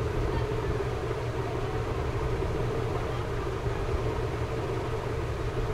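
A steady low mechanical hum with a faint steady tone above it, even throughout with no distinct knife strokes standing out.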